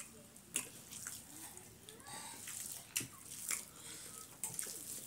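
Eating sounds: fingers mixing and scooping rice and curry on steel plates, with chewing and lip smacks. A few sharp, irregular clicks and smacks stand out.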